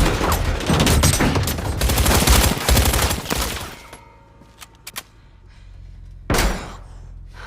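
Sustained automatic gunfire from several machine guns, rapid shots and bullet strikes against an armoured car, for about four seconds. Then it drops away to a low rumble with a few sharp clicks, and a short loud burst comes about six seconds in.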